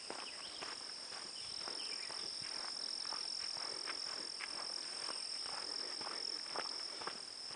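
A steady, high-pitched drone of insects, with footsteps on a grassy dirt trail at a walking pace.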